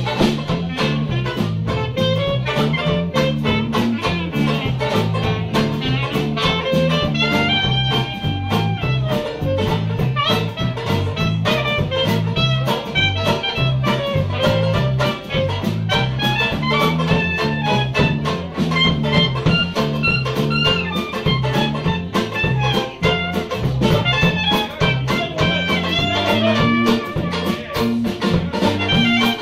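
A small traditional jazz band playing an instrumental chorus: clarinet, piano accordion, banjo and keyboard over a bass line stepping from note to note, with a steady swing rhythm.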